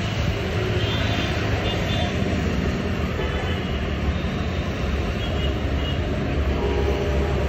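Steady low rumble of a vehicle in motion, loudest in the bass and even throughout, with a few faint short high tones above it.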